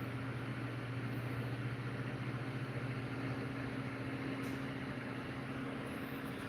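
Steady low mechanical hum from a running motor or fan, unchanging in pitch and level.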